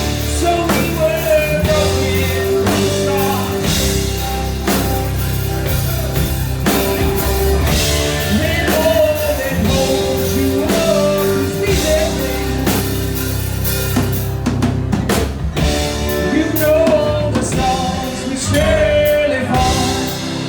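Rock song played by a band: drum kit, guitar and a singing voice.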